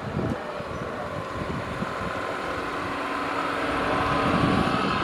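A steady motor or engine hum that grows slowly louder.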